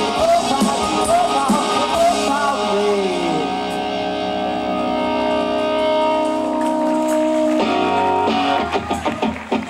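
Live rock band with electric guitars and drums. Singing for the first few seconds ends on a falling note, then a guitar chord is held ringing for several seconds. About three quarters of the way in, a chord change brings rhythmic strummed electric guitar.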